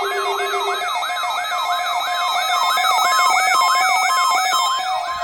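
Weather alert radio's electronic siren alarm, set off by the NOAA Weather Radio required weekly test. It is a loud, rapid whoop that falls in pitch and repeats about three times a second, with a steady tone beneath it.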